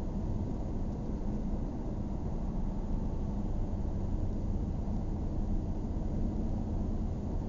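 Steady road and engine noise inside a moving car's cabin: a low, even rumble with a faint steady hum.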